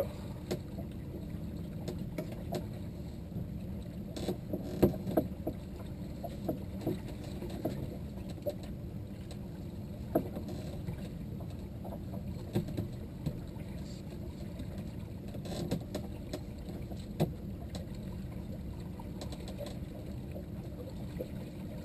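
Small open fishing boat on the water: a steady low wash of wind and water around the hull, with scattered light knocks and clicks.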